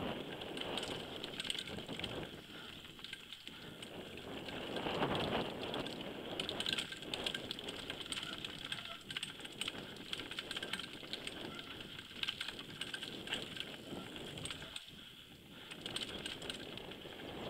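Downhill mountain bike running fast over a rough dirt trail, heard from a helmet-mounted camera: a rushing noise that swells and fades, with constant clicking and rattling from the bike's chain and frame over the bumps.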